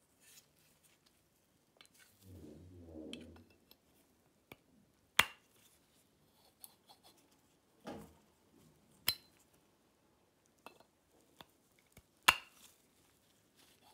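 Plastic and chrome parts of a bathtub overflow lever assembly clicking and knocking as they are fitted together by hand. A few sharp clicks stand out, the loudest near the end, with a brief muffled rustle about two seconds in.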